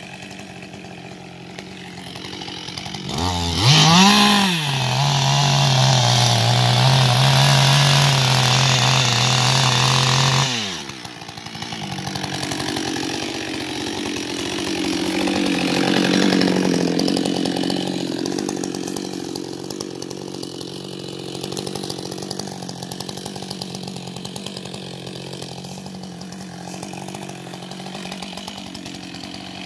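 Husqvarna 560XP two-stroke chainsaw idling, then revved up about three seconds in and cutting a log for about seven seconds, its pitch settling lower and steady under load. It then drops back to idle and keeps idling, with a brief swell in revs partway through.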